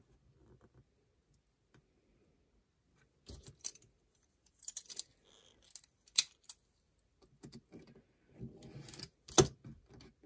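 Handling of a plastic rotary cutter and trimming glitter paper on a cutting mat: a string of sharp plastic clicks and clacks, a short scraping cut along the ruler near the end, and a loud clack right after it.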